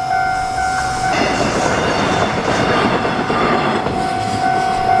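A passenger train passing over a level crossing, its wheels clattering loudly on the rails from about a second in until near the end. The crossing's warning signal sounds a steady tone before the train noise and comes through again as it fades.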